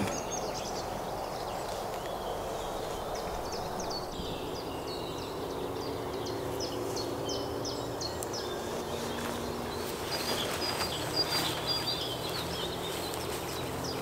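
Outdoor ambience with small songbirds chirping over a steady low hum, and a few faint soft knocks or rustles between about ten and twelve seconds in.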